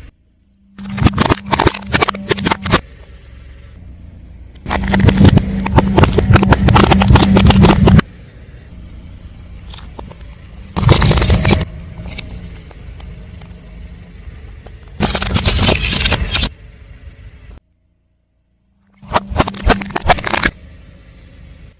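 A car tyre rolling over and crushing crunchy objects: five separate bursts of loud crackling and crunching, the longest about three seconds, with a steady low engine hum under them. Between bursts the sound cuts off abruptly to quiet or silence.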